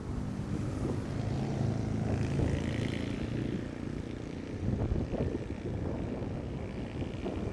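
Busy street traffic: a steady low rumble of passing vehicle engines, with a brief higher-pitched sound near the middle.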